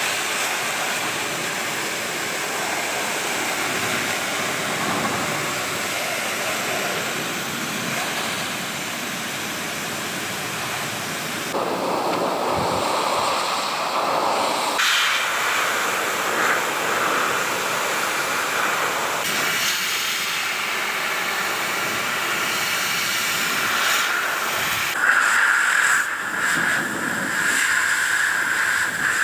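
Hand-held pet dryer (dog blower) running, a steady loud rush of air blown through a wet golden retriever's coat. The tone of the rush shifts several times as the nozzle moves over the fur, and a higher tone comes in for the last few seconds.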